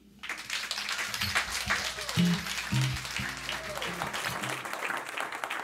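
An audience applauding after a song. The clapping breaks out a moment in and holds steady, with a few cheers and whoops over it.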